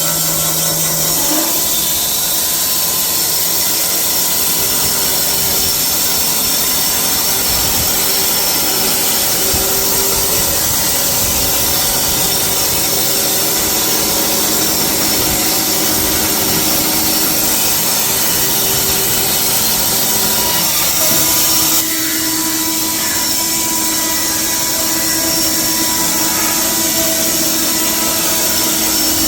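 AMIX PT 85 stationary band sawmill running, its band blade sawing through a log with a steady high hiss and whine. The sound changes slightly about 22 seconds in.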